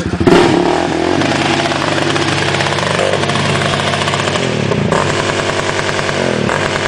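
Single-cylinder Yamaha sport quad engine revving hard as it churns through deep muddy water. The revs jump sharply just after the start, then rise and fall several times, with the hiss of water spray underneath.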